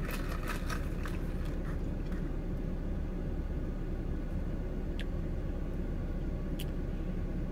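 Steady hum of a car's air conditioning and idling engine, heard inside the cabin. Two faint short ticks come in the second half.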